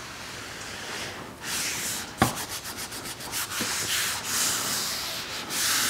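Hands rubbing firmly along a freshly glued leather belt layer, pressing it down so the glue adheres. Repeated scuffing strokes begin about a second and a half in, with one sharp knock just after two seconds.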